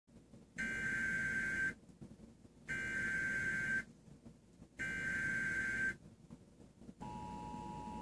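Emergency Alert System broadcast on TV: three raspy digital header bursts of about a second each, about two seconds apart. About seven seconds in, the steady two-tone EAS attention signal starts. Together they announce a severe thunderstorm warning.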